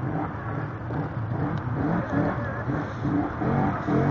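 Can-Am ATV engines revving unevenly as the quads churn through deep pond water, the pitch rising and falling with the throttle.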